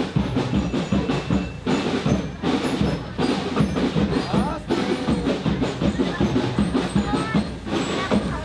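Children's marching band playing drums and percussion with a steady beat, with crowd voices mixed in.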